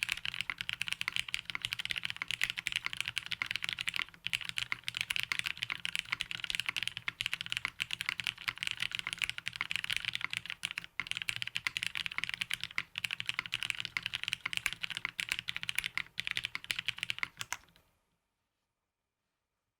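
Fast, continuous typing on a Matrix 6XV 2.0 Falcon mechanical keyboard with Cherry Hyperglide black linear switches, an FR4 half plate and GMK keycaps. The keystrokes pause briefly twice and stop about eighteen seconds in.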